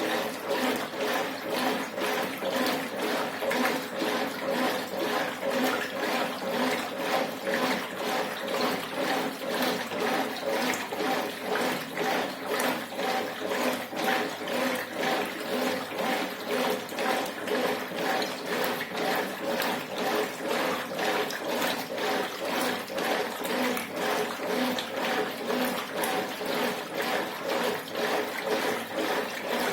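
Brastemp Ative 11 kg top-loading washing machine agitating a load: water sloshing back and forth in the drum in a steady rhythm, over a low motor hum.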